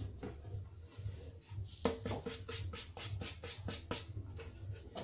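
A hand brushing sawdust off a drilled wooden board: a run of quick strokes, about six a second, starting about two seconds in and lasting about two seconds.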